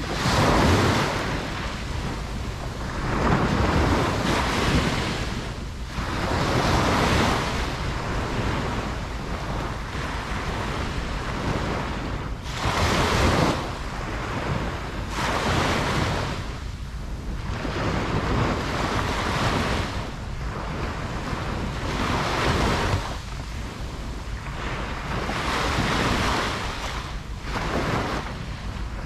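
Ocean waves breaking and washing on a beach, one surge after another every two to three seconds, with wind buffeting the microphone.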